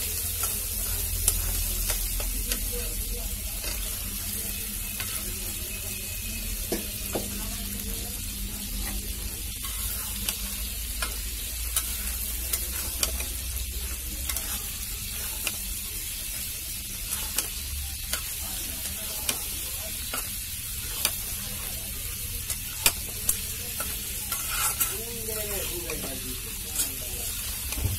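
Prawns frying in hot oil and onion masala in a metal karahi, sizzling steadily while a metal spatula stirs them, scraping and clicking against the pan at irregular moments.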